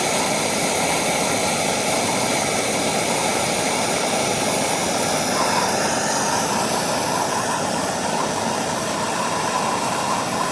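Handheld gas torch burning steadily with an even rushing sound, its flame heating aluminum to melt a low-temperature aluminum solder rod.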